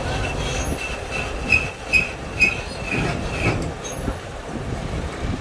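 Steel struck with a hammer in a regular rhythm, about two blows a second, each giving a short high metallic ring; the blows stop a little past halfway, leaving a steady low rumble.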